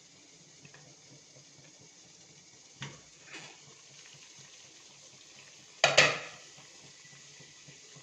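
Metal cookware clinking and clattering a few times, the loudest clatter about six seconds in, over a faint steady hiss from the steaming pot.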